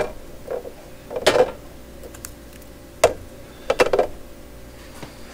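Handling noise: coiled microphone cables and their small metal plugs being moved and set down on a clear plastic tray, with a few short clatters and rustles.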